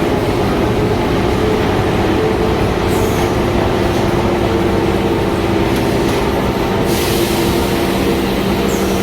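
Machinery of an automated corrugated-cardboard production line running: a steady mechanical drone with several held tones. A hiss joins about seven seconds in.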